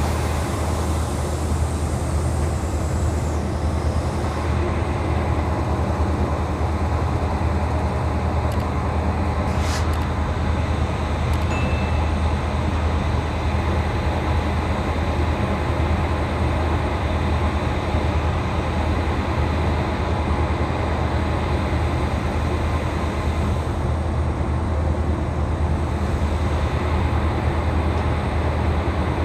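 WAG9HC three-phase electric locomotive whirring steadily with a deep, constant hum. There is one brief sharp sound about ten seconds in.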